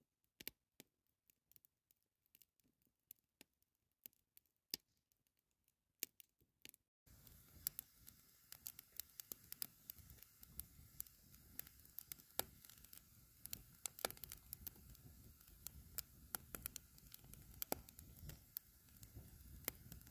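Wood fire crackling faintly in a metal fire bowl. At first there are only scattered sharp snaps; from about seven seconds in a steady low hiss sets in, with frequent crackles.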